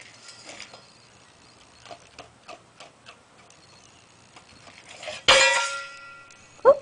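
Faint scattered clicks and taps, then a sudden loud clank about five seconds in that rings on for about a second, and a brief squeak sliding up in pitch near the end.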